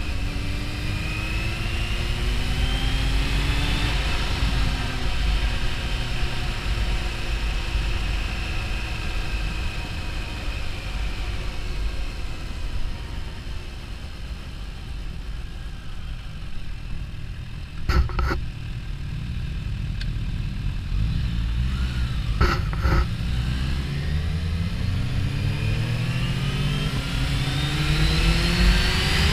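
Kawasaki Ninja H2's supercharged inline-four engine heard from on the bike, rising in pitch as it accelerates, easing off and running quieter through the middle, then pulling hard with a long rising note near the end. A steady low rush runs under it, and a couple of sharp clicks come about halfway through.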